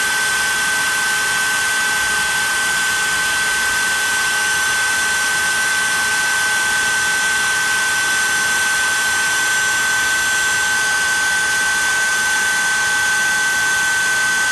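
CNC Shark HD4 router spindle running at a steady high-pitched whine while its V-bit engraves lettering into walnut.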